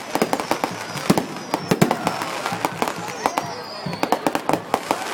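Fireworks going off in quick, irregular succession: several sharp bangs and crackles a second.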